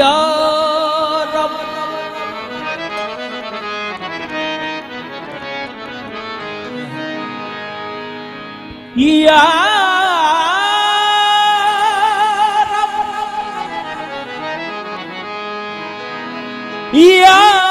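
Qawwali music: harmonium playing steady sustained chords, with a man's voice singing long held notes that waver in vibrato. The voice comes in at the start, again about halfway, and once more near the end.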